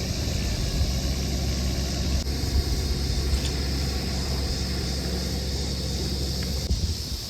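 Steady low rumble of wind buffeting the microphone, with a thin hiss above it, as the kayak drifts with the wind. It drops off abruptly near the end.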